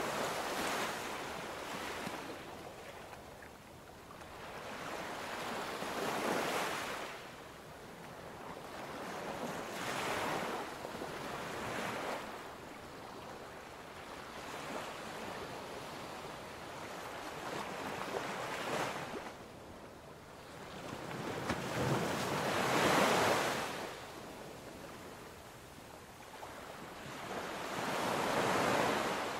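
Ocean surf: waves wash in and draw back, a hiss that swells and fades every few seconds. The largest wave comes about two-thirds of the way through.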